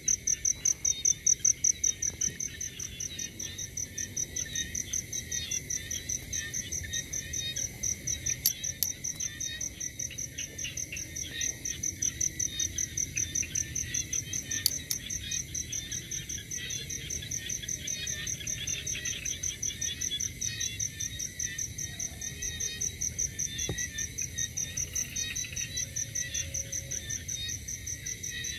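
Night chorus of crickets and other insects: a high, steady pulsing trill that repeats evenly throughout, with lower chirping calls, including frogs, beneath it.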